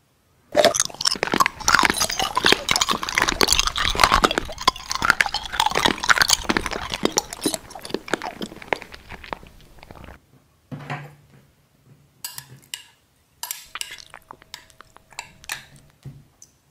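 Metal spoon stirring and scooping thick chili sauce in a glass jar: dense, wet crackling for about ten seconds, then sparser scrapes and clinks of the spoon against the glass, one of them ringing briefly.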